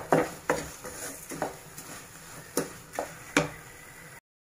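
Wooden spatula stirring and scraping a thick milk-powder and sugar mixture around a nonstick kadhai, a knock or scrape roughly every half second. The sound cuts off suddenly near the end.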